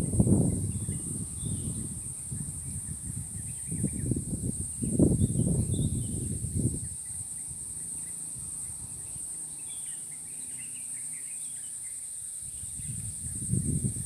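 Wind buffeting the microphone in gusts, strongest about four to seven seconds in and again near the end, over a steady high-pitched insect drone.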